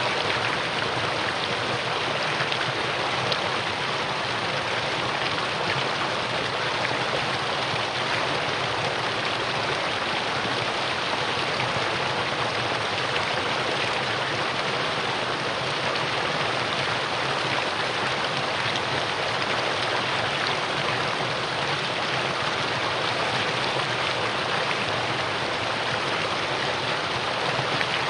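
Mountain valley stream flowing, a steady rush of water with no change.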